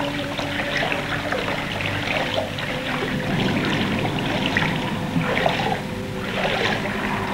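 Trickling, splashing water with a few faint steady tones beneath it.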